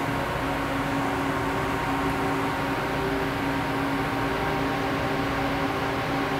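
Steady electrical hum of the running cyclotron's equipment, its RF power amplifier driving the chamber at about 250 watts and the magnet being brought up, with several steady tones over a low noise.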